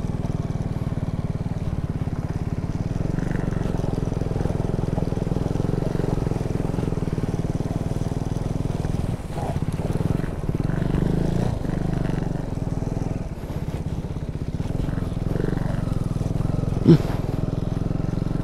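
Motorcycle engine running at low speed, heard close up from the bike itself as it rides a rough track. The engine note dips briefly a couple of times midway. There is one short, sharp knock near the end.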